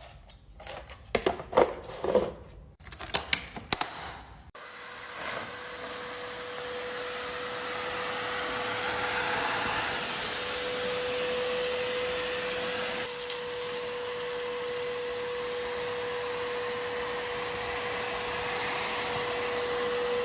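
A few seconds of clicks and handling knocks, then a Sitrus Victor wet-and-dry vacuum cleaner switches on about four and a half seconds in and runs steadily, its motor giving a steady whine over the rush of air.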